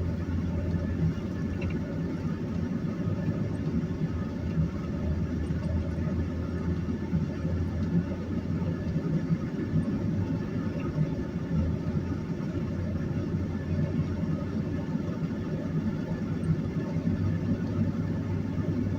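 Steady engine and road rumble heard inside the cab of a 2001 Chevy Silverado 1500 pickup while it is driving, with a low hum underneath.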